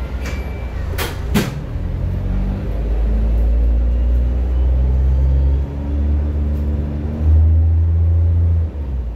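Diesel bus engine heard from inside the cabin, pulling away from a standstill. Two sharp clicks come about a second in, then the engine's low drone builds and changes note twice as it picks up, and eases off near the end.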